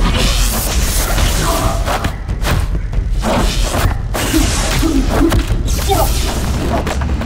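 Fight-scene sound mix: a music score with a steady heavy bass under repeated punch and weapon-swing impact effects.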